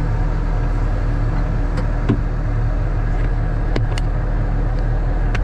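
An engine idling steadily, a low even hum, with a few faint clicks over it.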